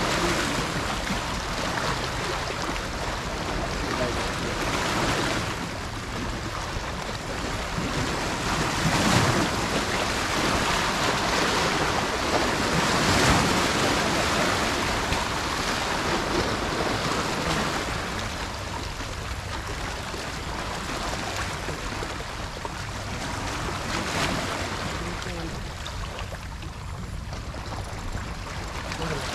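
Sea water washing and splashing against shore rocks, a steady wash that swells in louder surges several seconds apart, the loudest about a third of the way in.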